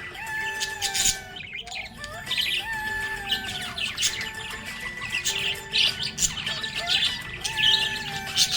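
Budgerigars chirping and warbling in quick, busy bursts over background music with a short melody that repeats about every two seconds.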